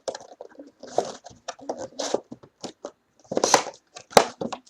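A trading-card box and pack wrappers being torn open and handled: crackling, tearing and scraping, with two louder rips about three and a half and four seconds in.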